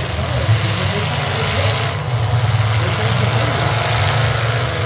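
Engines of demolition-derby pickup trucks running hard with a heavy, steady low rumble as the trucks shove against each other.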